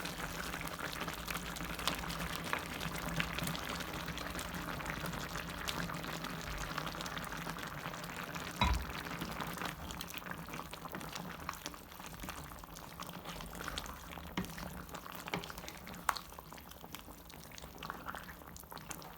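Soup bubbling in a pot, a steady crackle of fine pops that grows quieter in the second half, with one low thump about nine seconds in.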